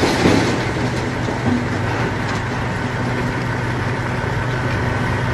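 Heavy truck engine idling steadily, a constant low drone.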